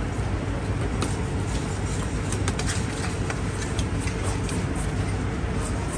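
Steady low background rumble with a scattered handful of light clicks from a metal spoon against plastic tubs and a clay mortar.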